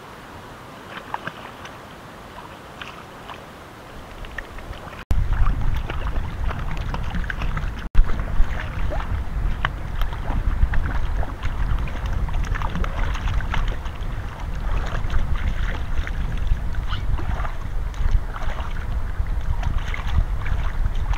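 Water splashing and sloshing as a puppy is washed by hand in shallow river water. About five seconds in, the level jumps and wind buffeting the microphone adds a heavy low rumble under the splashes.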